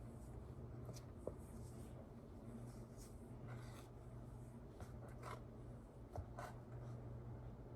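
Faint, irregular scraping and rubbing of cornstarch cloud dough being stirred in a bowl, in short separate strokes.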